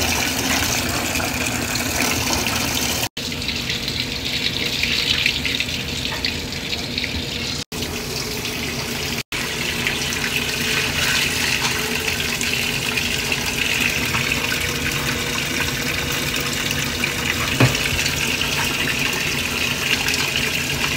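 Water pouring steadily into the tub of a top-loading washing machine as it fills, breaking off for an instant three times.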